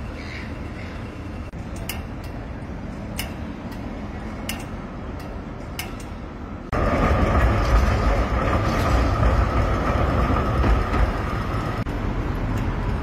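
City street noise: a low steady rumble with a few sharp clicks, then about halfway in a sudden jump to a louder rumble with a steady high whine from a passing vehicle, which stops shortly before the end.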